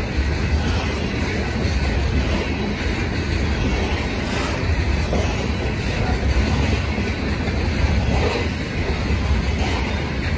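Coal hopper cars of a BNSF freight train rolling past close by: the steady, heavy low rumble of steel wheels running on the rails.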